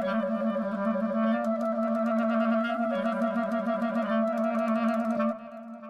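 Instrumental music: a clarinet plays a melody over a steady held lower note. The music drops away about five seconds in.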